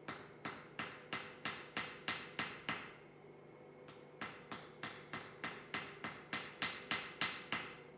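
Blacksmith's hand hammer striking a red-hot carbon-steel punch blank on the anvil: about nine quick blows at roughly three a second, a pause of about a second and a half, then about a dozen more at the same pace.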